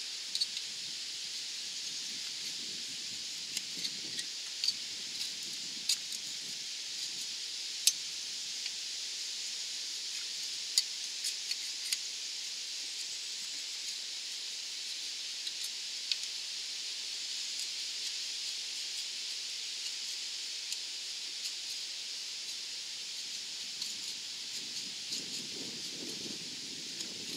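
A sharpened putty knife scraping and clicking against the cylinder head's exhaust-port face, clearing stuck remnants of an old header gasket, in scattered sharp ticks. Under it, a steady hiss of wind through leaves.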